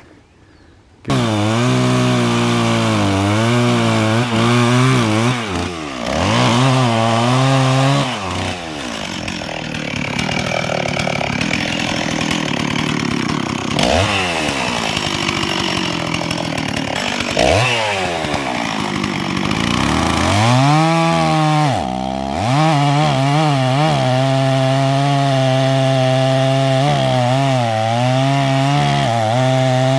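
Two-stroke chainsaw cutting into a dead elm, its engine revving up and sagging repeatedly as the bar bites into the wood.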